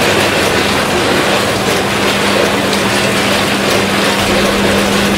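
Multihead weigher and vertical packing machine running: a dense, steady rattling clatter of snack pieces and the weigher's hopper mechanism, over a constant low hum.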